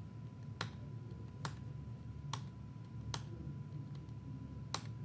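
Five separate key presses on a computer keyboard, about a second apart, re-entering a command in a terminal, over a faint steady tone.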